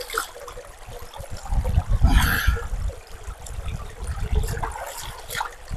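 Shallow stream trickling over stones, with water splashing as a man scoops it over his head and body; the splashing is loudest about two seconds in.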